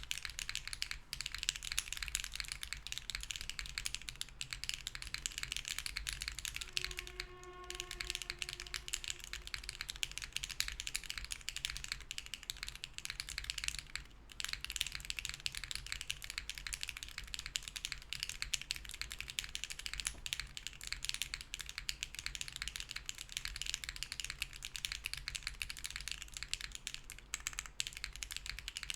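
Continuous fast typing on a Hera R2 mechanical keyboard with BSUN Bunny switches in a POM plate, no foam, and GMK keycaps: a dense, steady clatter of keystrokes with short pauses about seven and fourteen seconds in. A brief pitched tone sounds about seven seconds in.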